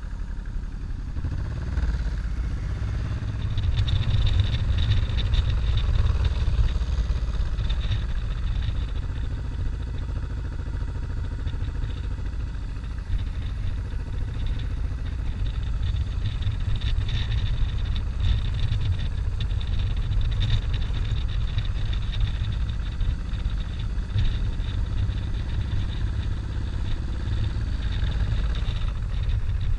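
Motorcycle running at steady cruising speed on a winding road, its engine sound mixed with a continuous low rumble of wind noise.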